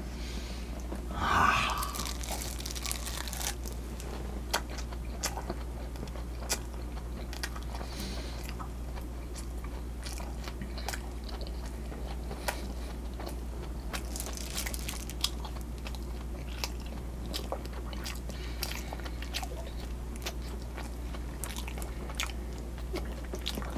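Close-up chewing of oily pan-fried Korean chive pancake (buchimgae), with many small irregular clicks and crunches as it is bitten and chewed. A steady low hum runs underneath, and there is a brief louder sound about a second and a half in.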